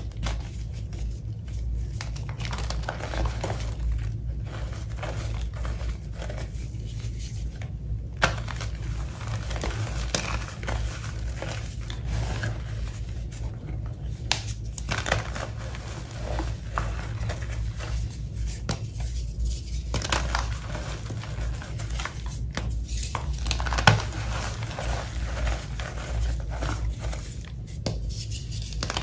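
Reformed gym chalk being crushed and crumbled by hand into a bowl of loose chalk powder: irregular crunchy crackling with softer powdery squishing. Two sharper snaps of chunks breaking come about 8 seconds in and about 24 seconds in, over a steady low hum.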